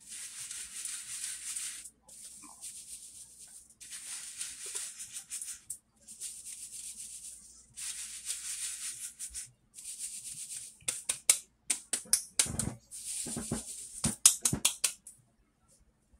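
Hand-held stainless-steel flour sieve shaken in bursts of a second or two, rice flour rasping through the wire mesh. Near the end comes a quick run of sharp knocks, the loudest sounds, as the sieve is rapped to get the last flour through.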